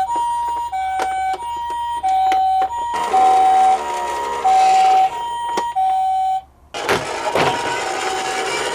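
Toy ambulance minicar's electronic two-tone hi-lo siren, alternating high and low about every two-thirds of a second, with sharp clicks over it. The siren breaks off about six and a half seconds in and gives way to a dense rattling noise, then starts again near the end.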